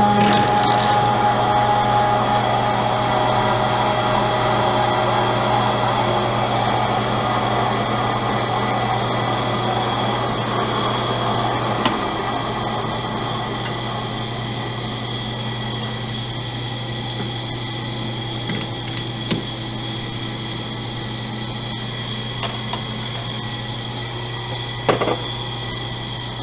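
Enco metal lathe running with a steady motor hum and whine that slowly gets quieter, with a few faint clicks.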